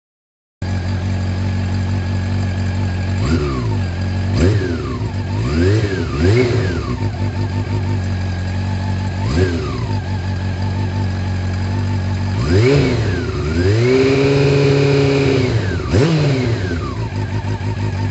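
Honda CB400 Super Four NC42's inline-four engine idling through a Motogear header and carbon slip-on silencer, blipped several times with quick rises and falls in pitch. Late on it is held at higher revs for about two seconds, drops back to idle, and gets one more blip.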